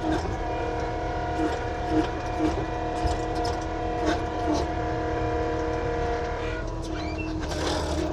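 Avant compact loader's engine running steadily, with scattered knocks and clatter from the bucket working gravel and a short hiss near the end.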